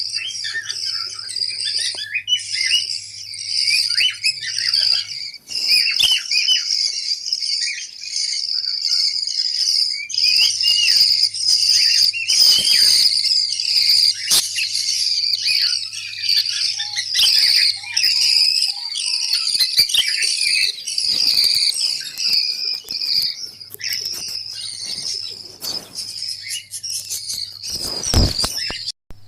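A group of budgerigars chirping and chattering without pause, with scattered sharp clicks. A loud thump near the end.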